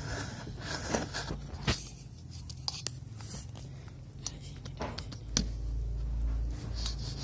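Handling noise from a phone being touched and moved by a small child: scattered clicks, taps and scrapes of fingers on the phone near its microphone, with a low rumble from about five seconds in.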